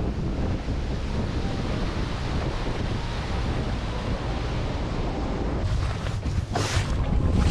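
Wind rumbling over the microphone, with water noise underneath. Near the end come a few light ticks and a brief hiss.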